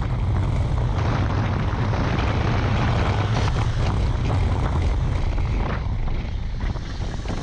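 Motorcycle riding at speed: a steady rush of wind on the microphone over the engine's low drone and road noise.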